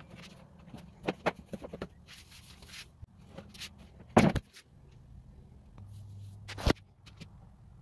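Taps, light scrapes and rustling from handling a black plastic wheelbarrow tub laced with zip ties, with two sharper knocks about four and six and a half seconds in.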